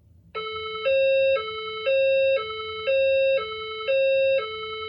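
System Sensor SPSR fire-alarm speaker-strobe sounding a two-tone alert signal, switching between a lower and a slightly higher, louder tone every half second, starting about a third of a second in. It is the alert tone that goes with the recorded message: an event in the building has been reported and is being verified, not an evacuation.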